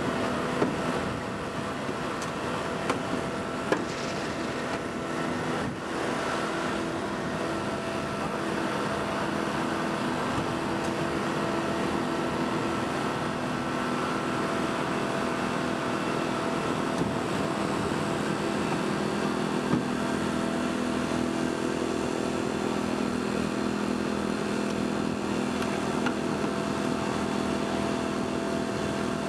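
Portable power unit for hydraulic rescue tools running steadily, with a few sharp clicks as firefighters work on the car.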